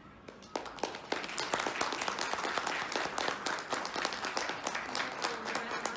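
Audience applauding, starting about half a second in and running on as dense, irregular hand claps.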